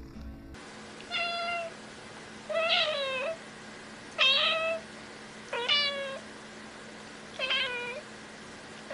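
Domestic cat meowing five times, short meows about one every second and a half.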